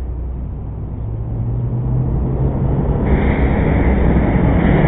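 Low wind rumble on the microphone, joined about three seconds in by a growing hiss as the lit fuses of the smoke bombs on the RC helicopter start to burn. The sound gets steadily louder.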